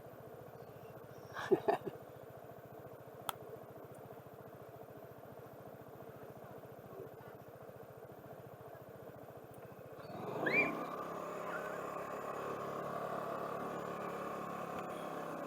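A vehicle's engine running steadily at low speed, with a few short sharp sounds about one and a half seconds in. About ten seconds in it grows louder with a brief rising sweep and keeps running louder.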